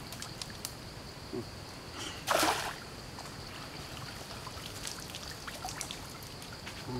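Water trickling and splashing around a bamboo fish trap being lifted and tilted in a shallow stream, with one louder splash about two and a half seconds in, plus scattered small knocks and drips.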